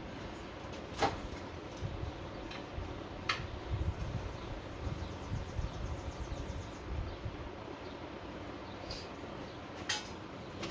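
Nut driver and screws working the top off a pulled small-block Chevy distributor: a few sharp metallic clicks and clinks, one about a second in, another past three seconds and one near the end, over a steady fan hum.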